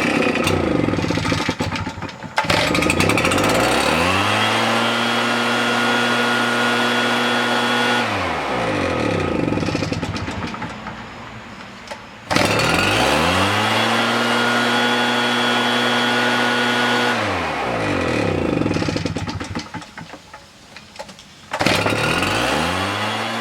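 RedMax leaf blower's two-stroke engine running, just started on its repaired recoil starter. It is throttled up from idle to high speed three times, with a rising whine each time, held for about four seconds, then let fall back to idle.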